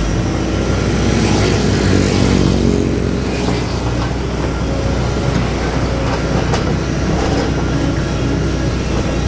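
Doosan DX225LCA excavator's diesel engine running under working load, its pitch shifting up and down in the first few seconds as it works, with a few short sharp knocks.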